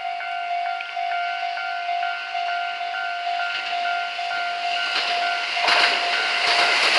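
Japanese level-crossing warning bell ringing steadily about twice a second. About five and a half seconds in, the rushing noise of a Kintetsu 21000 series Urban Liner limited express passing over the crossing rises and drowns it out.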